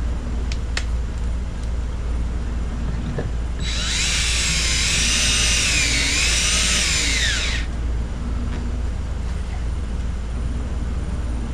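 Power drill running for about four seconds, its whine rising and falling in pitch, over a steady low hum, with a few light clicks before it.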